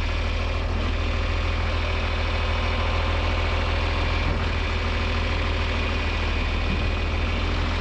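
Tractor engine idling steadily with a low, even hum.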